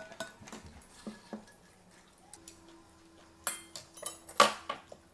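Metal spoon and chopsticks clinking and tapping against plastic food containers and dishes: a scattering of light clicks, with louder knocks about three and a half and four and a half seconds in.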